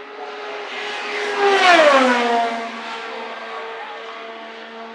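IndyCar's twin-turbocharged V6 racing engine passing at speed: the engine note swells, then drops sharply in pitch as the car goes by about two seconds in, and fades away.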